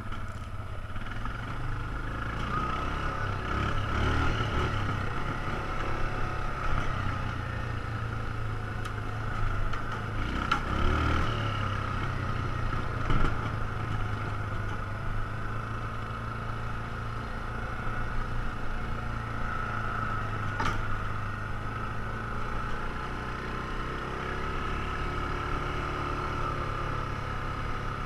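ATV engine running steadily with small rises and falls in throttle, with a few short knocks and rattles from riding over rough trail.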